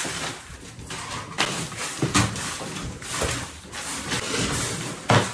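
Crushed ice tipped from a plastic basket onto a bin of fish in an enclosed fish hold: a rushing, rattling pour of ice, broken by sharp knocks around two seconds in and a louder one near the end.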